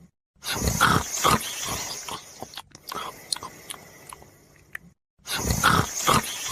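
Snoring: two loud, rasping snores about five seconds apart. Each starts suddenly after a moment of dead silence and trails off, like a repeated snoring sound.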